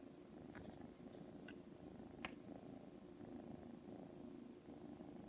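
Domestic cat purring steadily, with a few light clicks of trading cards being handled.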